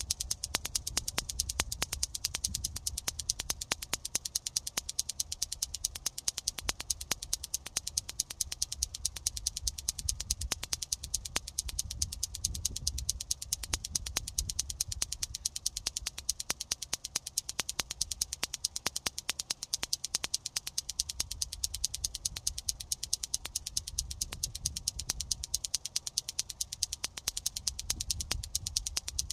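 Plastic clackers toy, two balls on cords from a handle, swung so the balls knock together in a steady, rapid clacking of about six clacks a second.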